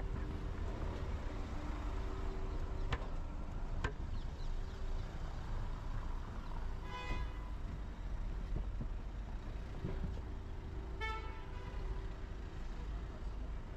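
Steady city traffic rumble with two short vehicle-horn honks, one about seven seconds in and another about eleven seconds in, and two sharp clicks near the start.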